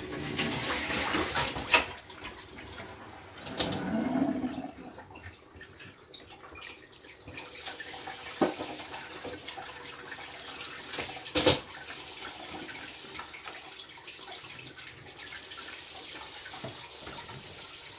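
Water running from a kitchen tap into a sink, with a few sharp knocks, the loudest about eleven and a half seconds in.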